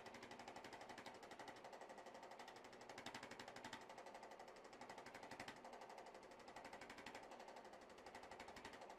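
Chiropractic adjusting gun tapping along the spine: a faint, rapid, even stream of mechanical taps.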